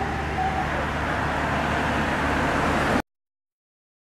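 Street traffic noise: a steady rumble of vehicle engines and road noise, cut off abruptly into silence about three seconds in.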